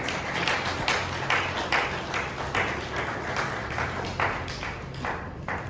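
Applause from a small group: separate hand claps, several a second, thinning out near the end.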